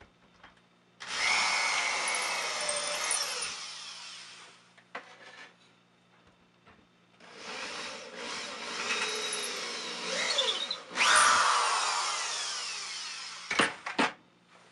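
Power drill with a small 1/16" bit drilling pilot holes through a hardwood ski rack into drywall: it runs for about three seconds, stops, then runs again for about six seconds with its pitch shifting. Two sharp clicks come near the end.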